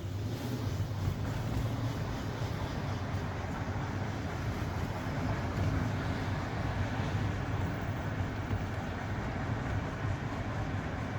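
Steady road and running noise of a 2014 Mercedes-Benz S500 (W222) heard from inside the car while driving, with no chirping from the front suspension: the sparrow-like squeak from the worn lower control arm ball joint is gone now that the arm has been replaced.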